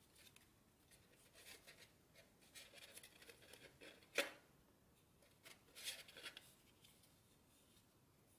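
Faint rustling and crinkling of origami paper being pinched and folded by hand, with one sharper crackle of the paper about four seconds in and a few more rustles around six seconds.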